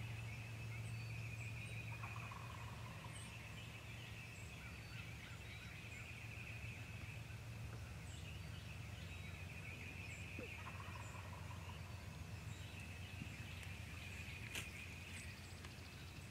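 Wild turkey gobbler gobbling twice, about two seconds in and again near eleven seconds, each gobble a short rattle that falls in pitch. Behind it run a steady high-pitched background chorus and scattered faint songbird chirps.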